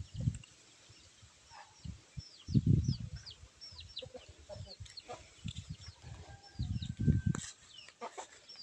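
Chickens in a yard: a long run of short, high, falling peeps, as from chicks, repeating every half second or so. A few low dull sounds come about two and a half seconds in and again near seven seconds.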